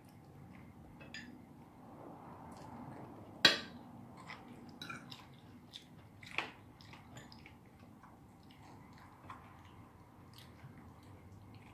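Cutlery clinking and scraping on dinner plates while people eat, with scattered small clicks, a sharp clink about three and a half seconds in and another about six and a half seconds in.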